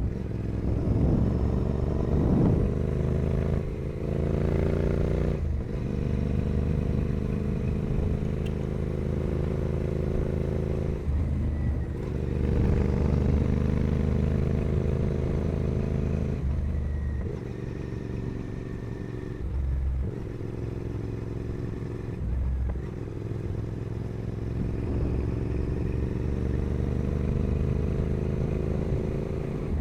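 Royal Enfield Continental GT 650's parallel-twin engine through a full 2-into-1 carbon Carbox Racing exhaust, on the move. The revs climb and drop several times with quick breaks for gear changes, including a steadier, lower-revving stretch past the middle.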